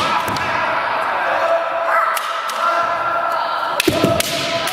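Kendo fencers' drawn-out kiai shouts overlapping, with sharp impacts of bamboo shinai strikes and stamping feet on the wooden floor just after the start and again about four seconds in.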